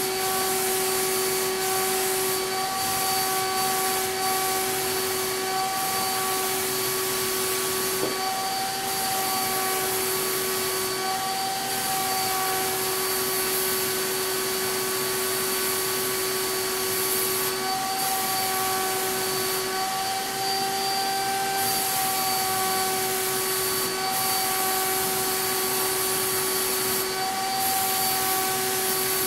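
CapSpray HVLP turbine sprayer running continuously while shellac-based primer is sprayed through its Titan Maxum II gun. It makes a steady whine over a rush of air, and the whine drops in and out now and then.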